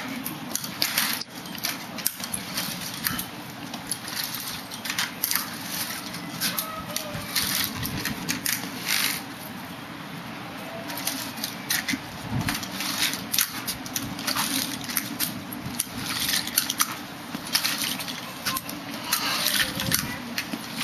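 Aluminium front-wheeled walker rattling as it is pushed along concrete, its wheels rolling and tennis-ball glides scraping, with shuffling footsteps. The clicks and scrapes come irregularly and often.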